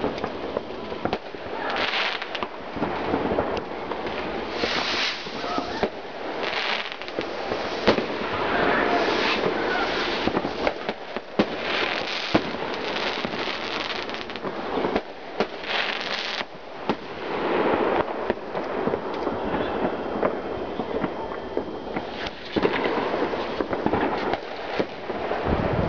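Many fireworks going off at once: a dense, continuous crackle with frequent sharp bangs from bursting shells.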